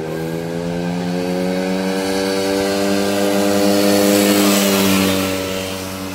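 Quad ATV engine running as it rides up the street towards the listener: a steady drone, creeping up in pitch and growing louder to about four seconds in, then easing off slightly.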